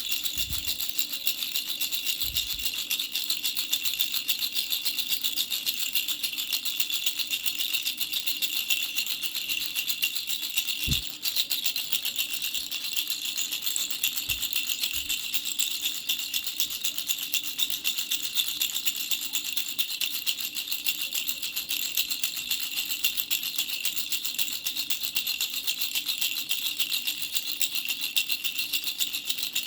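Baby rattle shaken rapidly and without pause, a dense, high rattling of the pellets inside. It breaks off briefly about eleven seconds in, and a few soft low knocks come in the first quarter.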